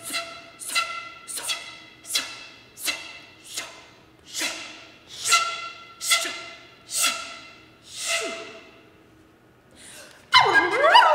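Flute and soprano voice in a contemporary classical duo: a string of short, sharply attacked notes, a little more than one a second, each fading with a downward slide in pitch. After a brief lull near the end, a sudden much louder passage of sliding pitches enters.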